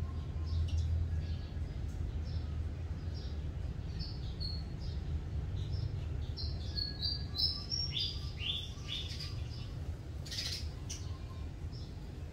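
Small birds chirping: many short, high notes, with a quick run of downward-sweeping notes about eight seconds in, over a steady low rumble.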